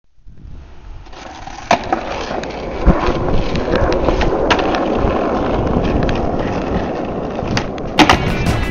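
Skateboard wheels rolling, fading in at the start, with sharp clacks of the board about two, three and eight seconds in.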